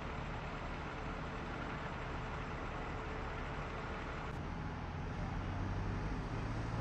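Idling vehicle engine, a steady low rumble whose hum grows stronger about four seconds in.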